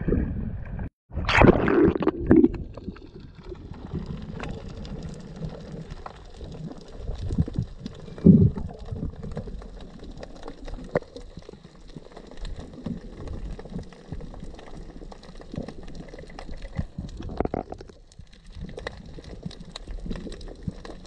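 Muffled underwater water noise picked up by a submerged camera: low gurgling and bubbling over a steady hiss, with a loud burst of water noise about a second in and scattered muffled gurgles after it.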